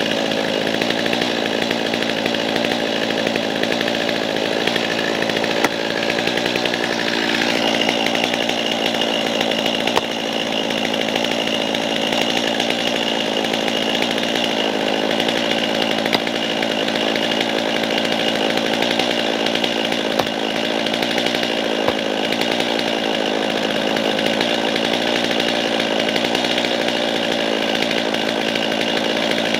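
A motor-driven machine running steadily at high speed, its tone shifting about seven seconds in.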